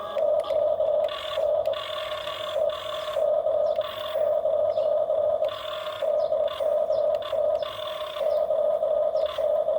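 Small electric motors and plastic gearboxes of remote-control toy construction vehicles whining in repeated short runs, starting and stopping every half second to second and a half as the controls are worked.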